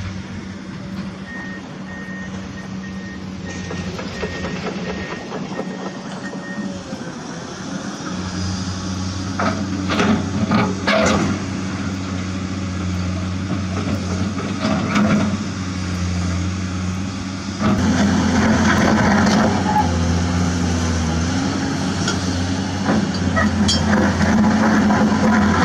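Truck engine running with a reversing alarm beeping at an even pace for the first several seconds. The engine then works harder and grows louder, with clanks around ten seconds in and more hits in the last few seconds.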